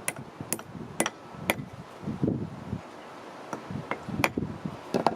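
Sharp metallic clicks and taps from the steel parts of an old cast-iron bench vise being worked by hand, about two a second at first and then irregular, over low rustling handling noise.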